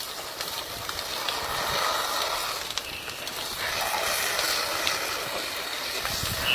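A large wood-framed building burning fiercely, with many sharp crackles over a steady hiss.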